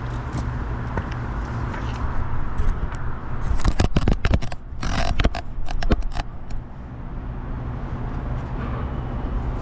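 Heavy engine running steadily, with a burst of clattering, scraping knocks in the middle.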